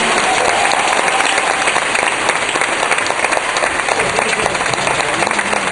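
Audience applauding, many hands clapping together in a dense, steady clatter.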